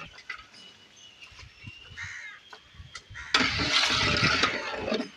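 Mutton being stirred in a large aluminium cooking pot with a long metal stirring rod. It is faint at first, then a loud, noisy stretch starts abruptly about three seconds in and fades within two seconds.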